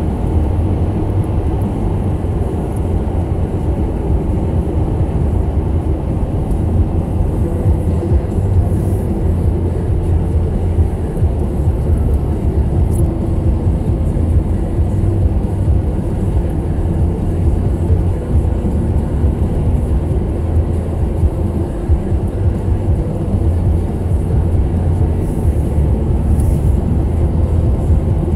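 Toyota Corolla driving on a snowy, slushy road, heard from inside the cabin: a steady low rumble of tyre and engine noise.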